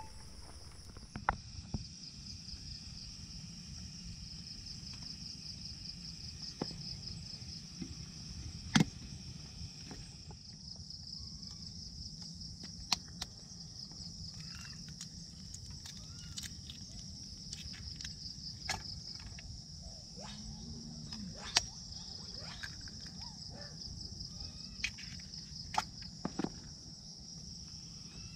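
Insects trilling steadily and high-pitched in a fine pulsing drone, with scattered sharp clicks and knocks now and then, the loudest about nine seconds in and again past the twenty-second mark.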